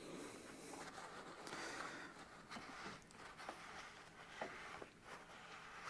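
Faint rubbing and rustling, then a few light taps: greasy axle parts being wiped and handled.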